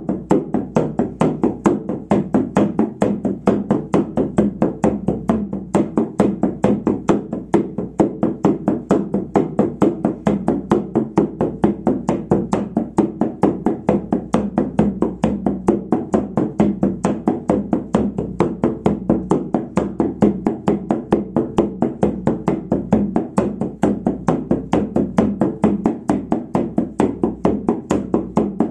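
Hand-held frame drum with a skin head struck with a padded beater in a fast, steady, even beat, the repetitive drumming used to carry a shamanic journey.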